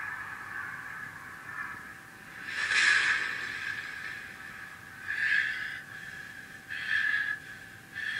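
Anime episode soundtrack played from a computer's speakers and picked up by a phone held in front of the screen: a steady high tone with three short harsh noisy bursts, the loudest about three seconds in.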